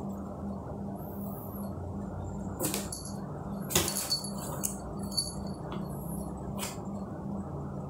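Cats moving at a cardboard box: a handful of short light knocks and clicks, with a brief metallic jingle like a collar's, over a steady low hum.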